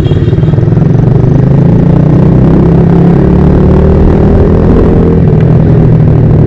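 Motorcycle engine running steadily under way, its note drifting slightly up and down.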